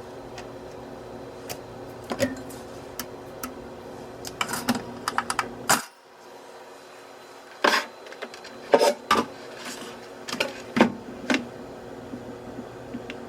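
Irregular clicks and knocks of small objects being handled, over a steady low hum that drops out briefly about six seconds in.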